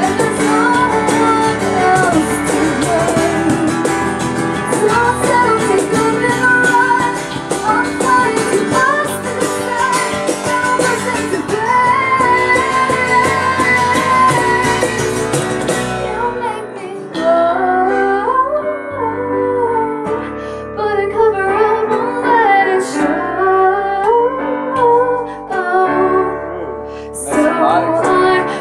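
A band playing a song: a woman sings lead into a microphone over strummed acoustic guitar and keyboard. The accompaniment thins out abruptly about sixteen seconds in, and the singing carries on.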